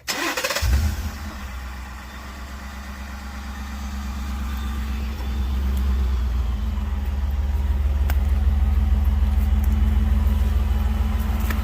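2018 Ford F-150 Lariat on its stock exhaust being started: a brief crank, the engine catching within about a second, then idling steadily.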